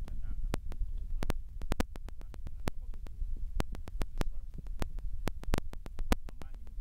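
Recording noise: a low rumble on the microphone broken by frequent sharp crackling clicks, several a second and irregular, with faint speech underneath.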